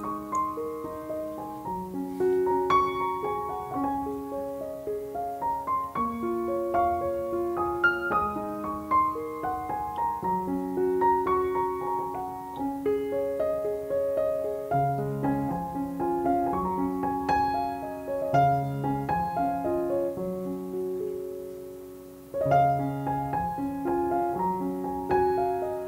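Solo piano music: a melody over lower accompanying notes, dropping away about 22 seconds in and then picking up again.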